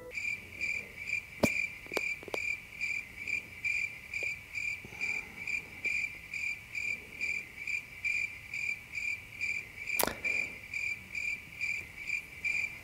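Crickets chirping in a steady rhythm, about three chirps a second, laid in as the comic "crickets" effect over a long silence while he thinks. A few faint clicks come about one and a half to two seconds in, and a sharp knock comes about ten seconds in.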